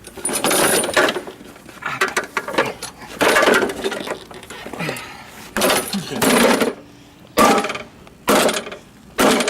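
A lawn mower being handled roughly: about eight short rattling mechanical bursts, each under a second, coming at uneven intervals.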